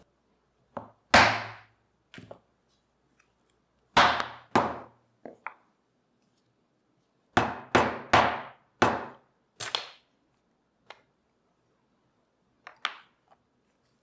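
A steel hollow hole punch being struck with a mallet to punch holes through leather: a dozen or so sharp strikes with a short metallic ring, in three bursts, then a few lighter taps near the end.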